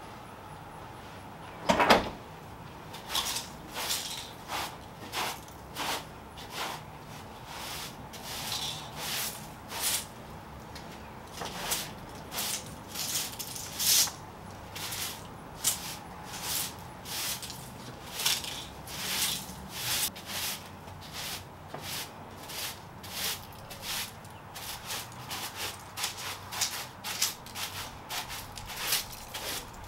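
A door shutting with a sharp knock about two seconds in, then a plastic-bristled broom sweeping a brick porch floor: a steady run of short scratchy swishes, about one to two a second, coming closer together near the end.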